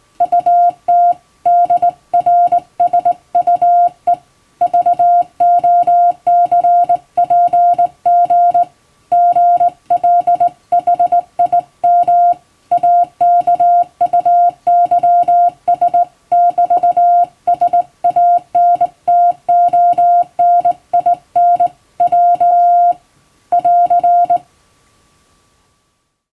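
Hand-keyed Morse code: a single steady mid-pitched tone switched on and off in short dots and longer dashes, sent as English-alphabet Morse in telegram format. The sending stops near the end.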